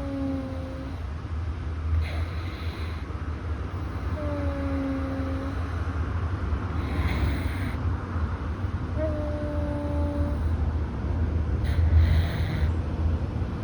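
Russian Blue cat breathing in its sleep through a stuffy nose: three thin, slightly falling whistles, one about every four and a half seconds, with a breathy rush between them. A steady low rumble runs underneath.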